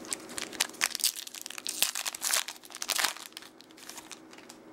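Crinkling and crackling of a foil baseball-card pack wrapper being handled and torn open, a quick run of crackles for about three seconds that then dies down.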